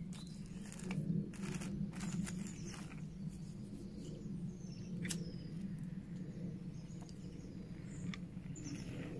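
Woodland ambience: a steady low rumble with a few short bird chirps, and light clicks and rustles of small objects and a cloth pouch being handled, with a sharper click about five seconds in.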